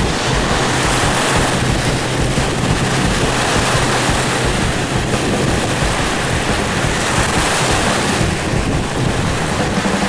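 Strong wind buffeting the microphone over choppy water, with a steady low boat-engine hum underneath that changes pitch near the end.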